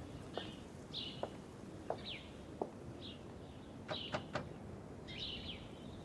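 Small birds chirping, a few short falling chirps spread through, over soft footsteps on hard ground about two a second. Three quick taps come close together about four seconds in.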